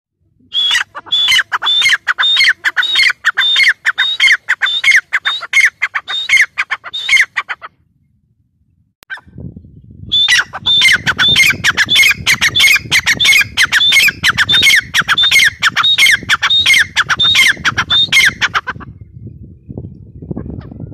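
Grey francolin (teetar) calling: a fast series of loud repeated notes, about three a second, each falling in pitch. It comes in two long runs with a pause of about two seconds in the middle. A low rumble sits under the second run.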